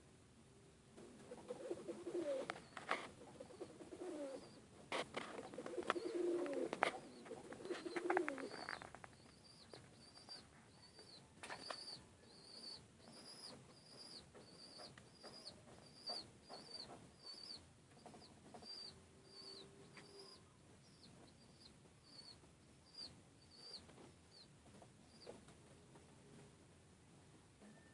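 Domestic pigeons cooing, mixed with sharp clicks and flutters, for about the first nine seconds. After that comes a steady series of thin, high chirps, about three every two seconds.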